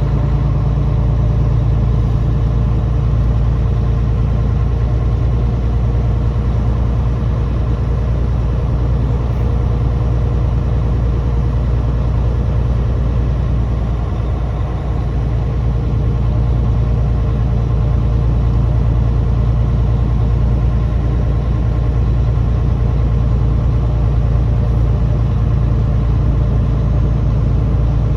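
Heavy truck's diesel engine running steadily under way, a low, even drone with no changes.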